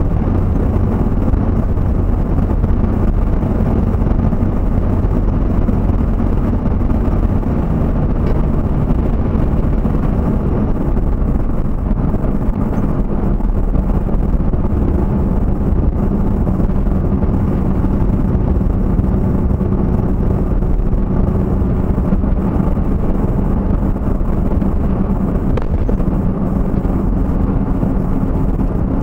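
A vehicle driving along at a steady speed, heard from inside the cab: a constant low rumble of engine and road noise.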